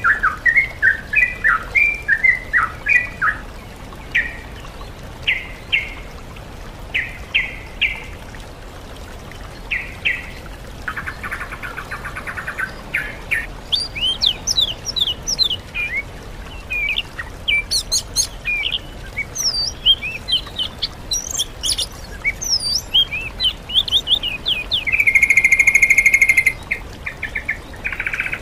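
Songbird song from a bird-song tutor recording mixing yellow-vented bulbul with oriental magpie-robin and greater green leafbird: quick chattering phrases at first, then a run of rapid high sweeping whistles, and a loud harsh buzzy note near the end.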